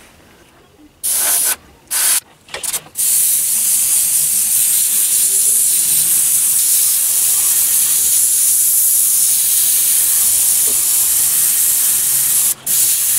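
Airbrush spraying paint: a few short hissing bursts in the first three seconds, then a long steady hiss, broken off briefly near the end.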